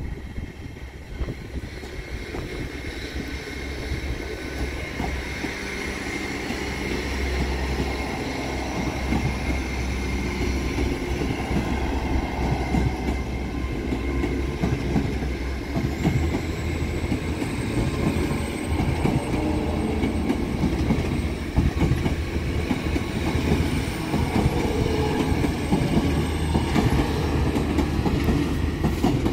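GWR Hitachi Intercity Express Train passing slowly over a level crossing: a steady low rumble and hum with wheels clacking over the rail joints, and a thin high wheel squeal. It builds over the first few seconds and then holds steady.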